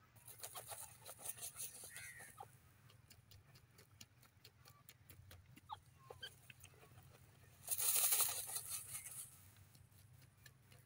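Grey francolin dust-bathing in dry soil: scratching and flicking loose dirt makes a rapid patter of small clicks and a sandy rustle, with a louder, longer rush of thrown dirt and shuffling feathers about eight seconds in.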